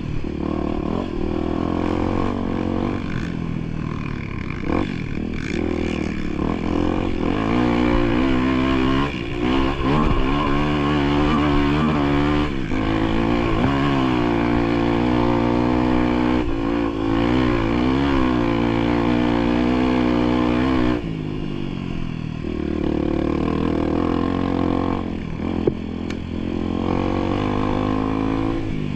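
A motor vehicle's engine running under load on a trail, its pitch rising and falling with the throttle. It runs harder and louder from about eight seconds in until about twenty-one seconds, then settles back lower.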